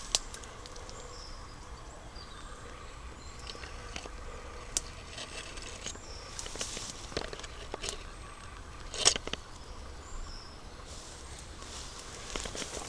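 Quiet footsteps and rustling of a person moving through ferns and bramble undergrowth, with a few sharp clicks or snaps, the loudest about nine seconds in.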